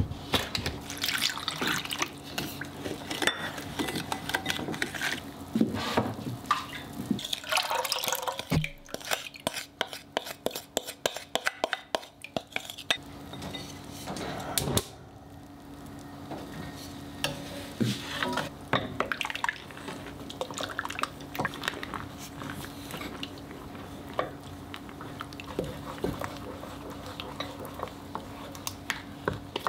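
A wooden spatula scraping and tapping in a glass bowl as dry ingredients are mixed and liquid is stirred in, with dense splashing and clinking about eight to thirteen seconds in. From about halfway, softer scattered knocks of the spatula stirring matcha warabimochi batter as it thickens in an enamel saucepan over very low heat, over a steady low hum.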